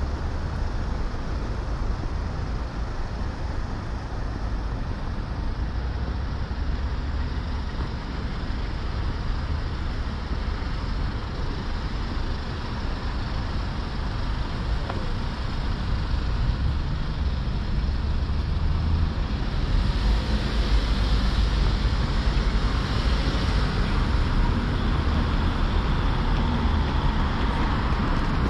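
City street traffic: a steady rumble of passing vehicles, getting louder about two-thirds of the way in.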